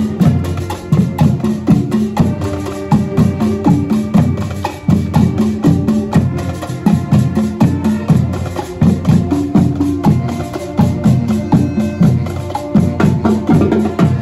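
Marching band playing: drums beat a fast, driving rhythm under a pitched melody.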